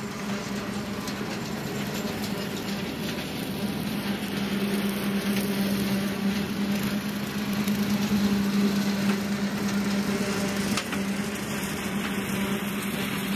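John Deere 2038R compact tractor mowing with a 6-foot Frontier RC2072 bush hog: a steady engine and mower hum that grows louder about halfway through and eases off again near the end.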